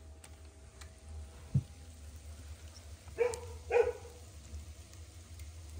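A dog barking twice, two short barks about half a second apart, after a single dull thump about a second and a half in.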